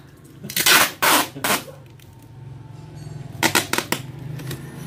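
Brown packing tape being pulled off its roll in short, loud rips: three in quick succession about half a second in, then another few around three and a half seconds in, as it is stretched over a cardboard lid.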